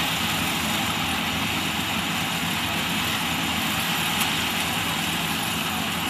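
Half-feed combine harvester running steadily while harvesting paddy: its engine drone mixed with the even whirring din of the machinery taking in and threshing the stalks.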